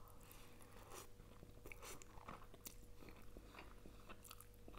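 Faint chewing and small wet mouth smacks and clicks of a person eating glass-noodle salad with chicken and vegetables, close to the microphone, over a faint steady hum.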